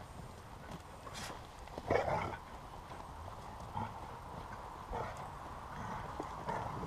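Dogs scuffling about and digging in loose dirt, with footsteps on the forest floor; a louder brief noise about two seconds in.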